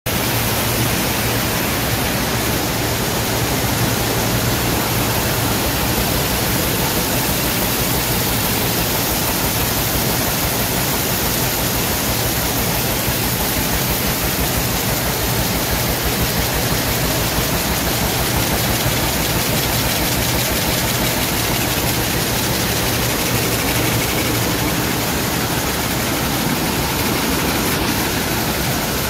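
Dornier rapier weaving loom with a Stäubli dobby running at speed: a loud, steady, dense mechanical clatter with a low hum beneath it.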